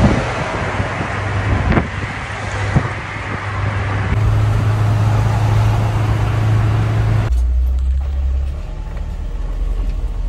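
Engine drone and road noise inside the cab of a moving van, with a couple of short knocks. About seven seconds in, the hiss falls away and a deeper, lower rumble remains as the van rolls slowly over a dirt track.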